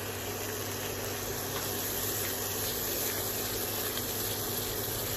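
Onion-tomato masala paste frying in oil and butter in a non-stick kadai, a steady soft sizzle with a few faint crackles as it is stirred with a silicone spatula, over a steady low hum.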